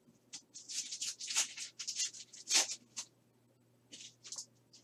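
Trading cards and foil pack wrappers rustling and sliding as hands handle them, in a run of short dry scrapes for a few seconds, then two more about four seconds in.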